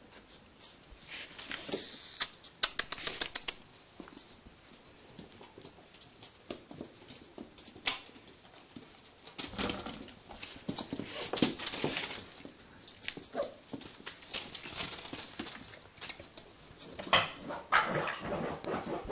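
Basenji puppies, almost six weeks old, tussling with a plush toy on a blanket: small dog noises mixed with scratching and rustling on the fabric, with a quick run of sharp clicks a few seconds in.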